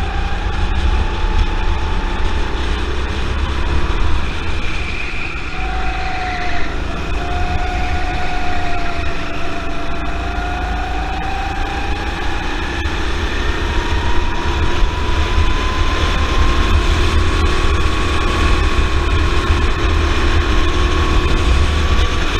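Honda four-stroke single-cylinder kart engine running at speed on track, its pitch dipping briefly about a quarter of the way in as the kart slows for a corner, then climbing steadily through the last third as it accelerates. Wind buffets the onboard microphone.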